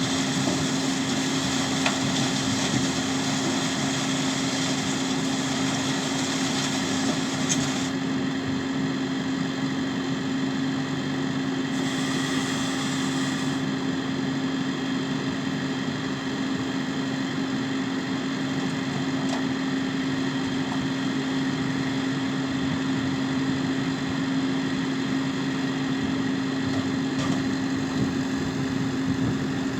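New Holland T6 tractor engine running at a steady, unchanging speed with a constant drone.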